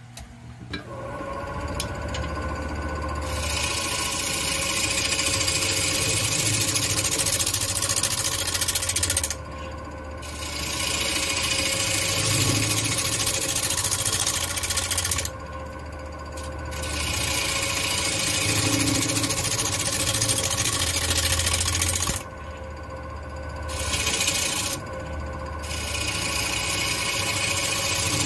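Wood lathe motor starts and runs with a steady hum while a turning tool cuts the spinning black walnut, making a hissing scrape in four long passes with brief pauses between. This is a cleanup cut to take out the last rough spots before sanding.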